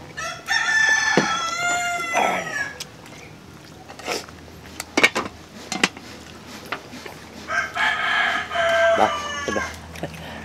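A rooster crowing twice, each crow about two seconds long and falling away at the end, with a few sharp clicks of cutlery on a plate in between.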